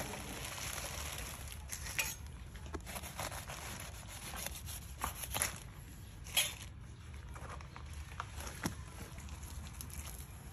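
Faint scattered crackles and taps as hands pull apart and handle the two halves of a cut jackfruit, over a steady low background hum.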